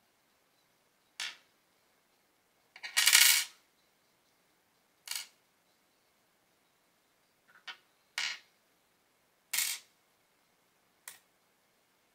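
Small metal lighter parts set down one at a time on a wooden tabletop: about seven separate short metallic clinks, the loudest a longer rattle about three seconds in.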